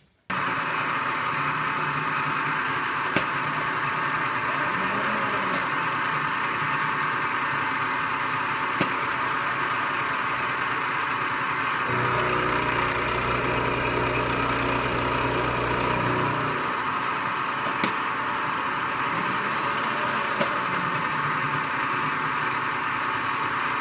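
Vertical milling machine running, its end mill taking a rough cut in a 1018 steel block: a steady machining noise with a few sharp ticks. A deeper hum joins for about four seconds past the middle.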